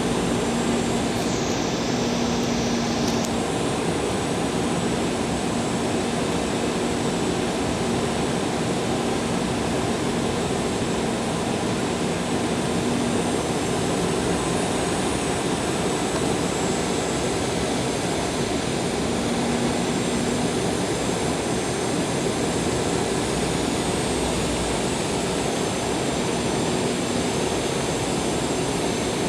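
Steady engine noise and rushing air of an Embraer 190 jet airliner on its landing approach, with a faint hum underneath.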